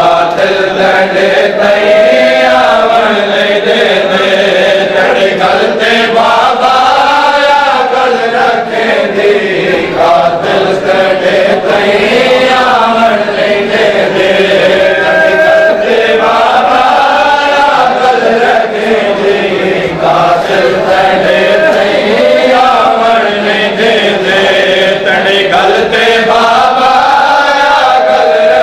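Male voices chanting a Shia mourning lament (noha), in long phrases that rise and fall in pitch. Sharp slaps from bare-chested men beating their chests in matam run through the chant.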